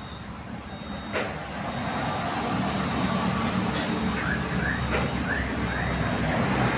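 Low engine rumble of a motor vehicle that grows louder, with a few sharp clicks.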